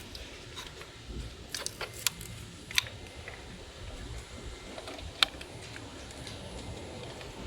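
A few sharp, scattered clicks and small plastic-and-metal handling sounds from working on an engine control module's wiring connector, the sharpest about five seconds in, over a low steady background rumble.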